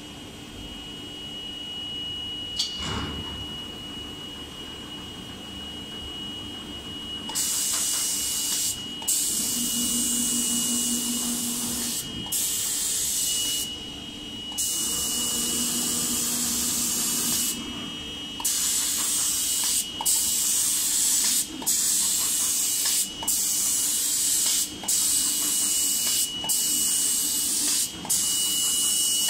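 Automatic spray gun of a CNC paint spraying machine hissing as it sprays a wooden door panel. It starts about a quarter of the way in and runs in long bursts, then in shorter bursts about every second and a half with brief breaks. A thin steady high tone runs underneath.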